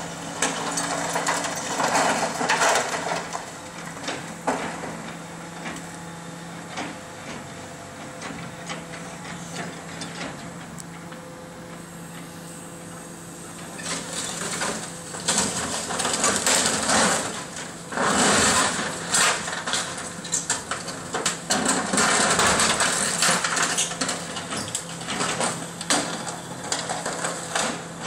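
Excavator demolishing a brick building: its engine hums steadily under irregular crunching and clattering of breaking masonry, timber and rubble. There is a short burst about two seconds in, and the demolition noise becomes loud and continuous for the second half.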